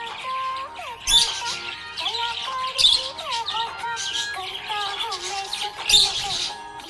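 Budgerigar chirping and warbling over a background music track that carries a melody, with a few louder accents about one, three and six seconds in.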